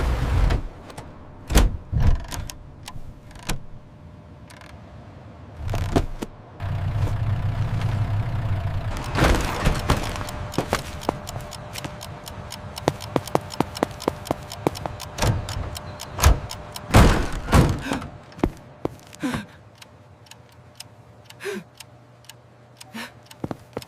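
Scattered knocks, thuds and clicks, with a stretch of low engine-like hum a few seconds in.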